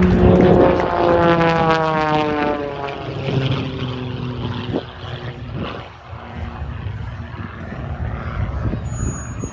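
Propeller aerobatic airplane's engine flying past, its pitch falling steadily as it goes by over the first few seconds, then fading away.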